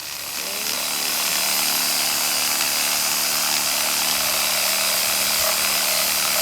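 Small power saw spinning up and then running steadily as it cuts dry wood for firewood, its pitch rising in the first second.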